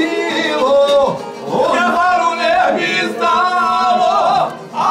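Male voices singing a traditional folk song (izvorna pjesma) in long, held notes with wavering bends in pitch.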